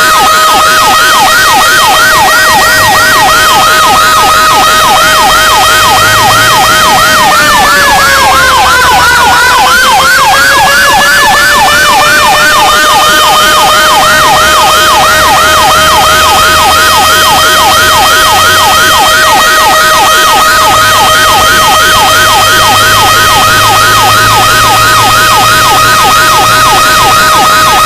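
Fire pumper's siren sounding loud and continuous: a fast yelp of about four to five sweeps a second over a steady high tone. About seven seconds in, the whole siren sags in pitch for a few seconds, then climbs back.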